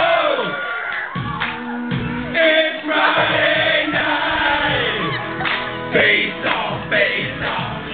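A group of men singing a song together live into microphones, with acoustic guitar accompaniment.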